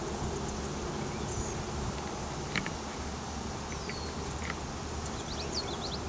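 Swarm of honey bees clustered on a branch, buzzing with a steady hum.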